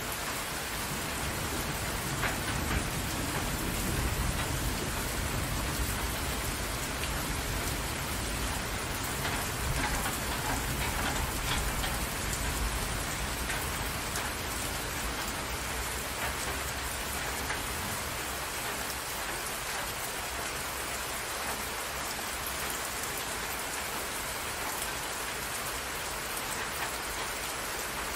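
Steady heavy rain falling on open water, a dense even patter of drops. A low rumble of distant thunder underneath is strongest at the start and fades out by about halfway through.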